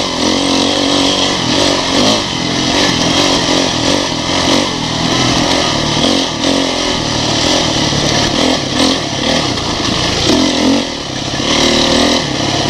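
Yamaha dirt bike engine revving up and down with the throttle while ridden fast over rough singletrack, with short clatters from the bike over the bumps.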